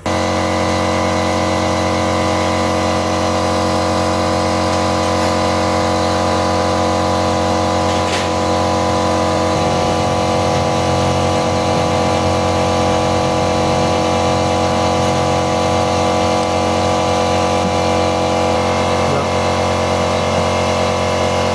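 A motor running at a steady speed, giving a loud, even hum with a whine above it. It starts abruptly at the beginning and cuts off sharply near the end.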